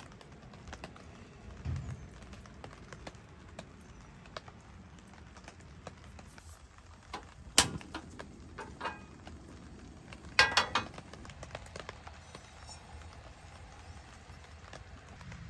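Camp-cooking handling sounds over a steady faint patter of rain: soft scattered taps, then a sharp click about seven and a half seconds in as the portable butane stove is lit. About ten and a half seconds in comes a brief ringing clatter of kitchenware.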